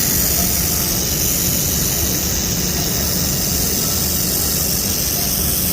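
Steady machinery running: a constant low rumble under a high, even hiss.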